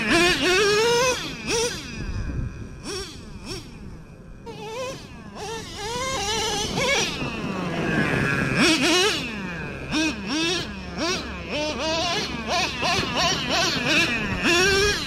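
High-pitched buzzing of small, fast-revving motors whose pitch surges up and drops again and again: an FPV chase drone's propellers together with the Traxxas Revo 3.3's nitro engine revving as it drives. It dips quieter for a few seconds near the start.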